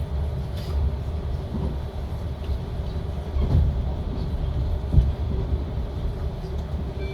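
Running noise of a JR Central 383 series electric train heard inside the carriage: a steady low rumble of wheels and running gear on the rails, with a few short knocks, the loudest about five seconds in.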